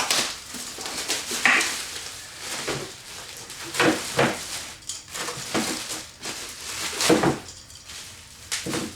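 Unpacking noise: packing material rustling and crinkling, with irregular clinks and knocks of metal grill parts being handled in a box.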